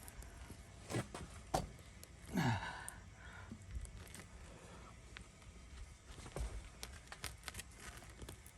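Scattered small clicks and scrapes of a tire plug insertion tool being forced into a puncture in a truck tire, the plug refusing to go in. A short falling groan of effort about two and a half seconds in.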